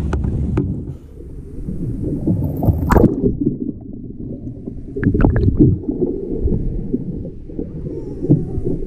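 Water sloshing and gurgling around a kayak, muffled and low, with a sharp splash about three seconds in and a cluster of sharper splashes around five seconds.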